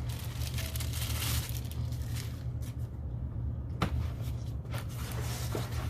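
Rustling and handling of a radio transmitter's molded packaging for the first couple of seconds, then a few sharp clicks and knocks as the plastic parts are moved. A steady low hum runs underneath.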